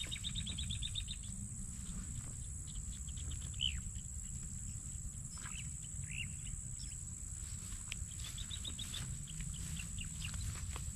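Insects buzzing steadily at a high pitch, with birds calling over them: a rapid trill at the start and again about eight seconds in, and a few short chirps between. A low rumble runs underneath.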